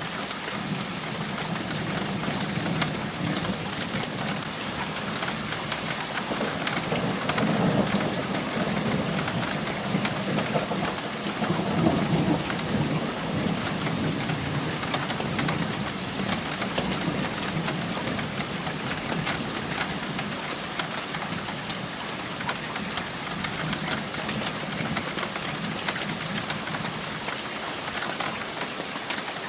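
Thunderstorm: steady rain hissing and pattering, with thunder rumbling low and swelling twice, about a quarter of the way in and again near the middle.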